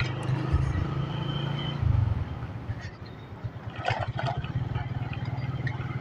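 Motorcycle engine running at low road speed with a steady low hum; about two seconds in it eases off to a quieter, even chugging. A short higher sound cuts in briefly near the middle.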